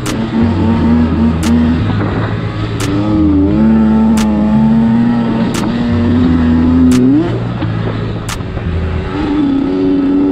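Kawasaki KX85 two-stroke dirt bike engine running at speed on a trail ride, its pitch wavering with the throttle, rising sharply about seven seconds in and then falling back. Background music with a bass line and a regular beat plays underneath.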